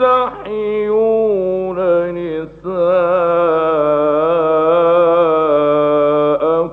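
Male Quran reciter chanting in the melodic mujawwad style, drawing out long, ornamented held notes with a short break about two and a half seconds in. A steady low hum from the old radio recording runs beneath.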